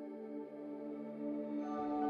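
Soft ambient background music of held chords, growing fuller about a second and a half in as more notes and a low end come in.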